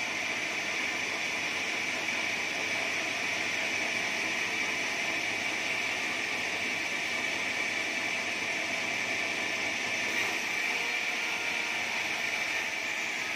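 Sawmill band saw running and sawing lengthwise through a large acacia timber block: a steady hissing noise with a high ringing note.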